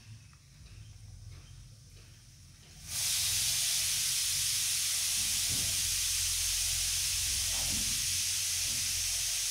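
A loud, steady hiss starts abruptly about three seconds in and holds at an even level without stopping.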